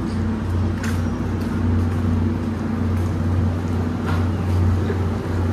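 Steady low hum and rumble of the SL Gunma Yokokawa steam-hauled passenger train, with a few faint clicks scattered through it.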